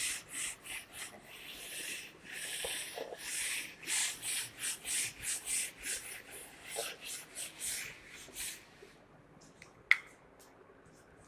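A whiteboard duster wiping a whiteboard clean in rapid back-and-forth strokes, which stop about nine seconds in. A single sharp click follows near the end.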